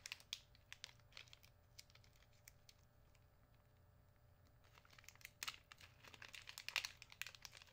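Small plastic parts and packaging handled at close range: light clicks and crinkles, a few scattered at first, then a denser run of crinkling about five seconds in.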